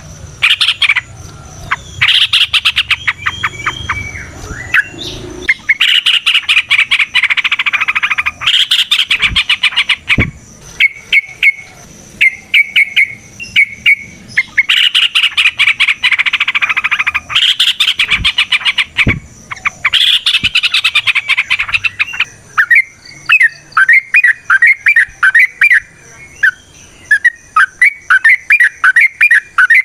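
Yellow-vented bulbul (trucukan) singing a long, rapid chattering song in repeated bouts. About two-thirds of the way through it switches to a quick series of short, evenly spaced chirps.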